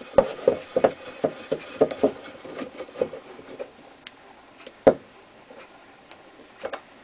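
Lyman Universal case trimmer being hand-cranked, its cutter scraping brass off a rifle case mouth: about three seconds of quick, even clicks and scrapes, about three a second. The cranking then stops, leaving a few single clicks and one sharp knock near five seconds as the trimmer is handled.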